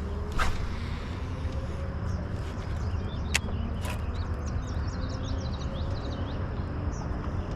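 A steady low rumble with small birds chirping in a quick run of short high notes in the middle, and a few sharp clicks.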